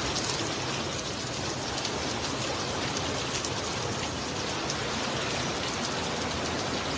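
Heavy rain pouring down on a flooded street, with fast-flowing floodwater: a steady, even hiss.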